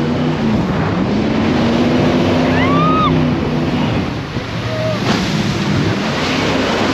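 Jet boat engine running over the rush of water and wind on the microphone, its pitch dropping and then rising again as the throttle changes. A brief high rising-and-falling cry sounds about three seconds in.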